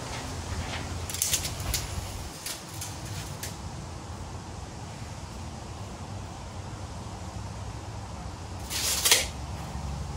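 Steel tape measure in use: a few light clicks in the first few seconds, then a short rush of noise about nine seconds in as the blade is let back into its case, over a steady low hum.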